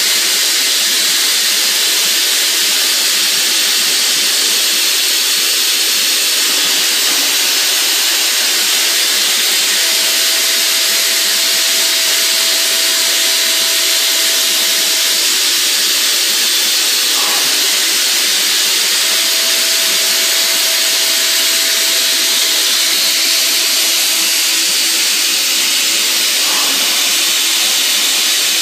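Fadal VMC-15XT CNC mill cutting round Delrin stock with a 1/16-inch carbide end mill spun at 20,000 rpm in a Lyndex 5:1 speed-increaser head: a steady loud hiss throughout. A steady mid-pitched tone joins the hiss twice, each time for about five seconds, and there are two brief clicks.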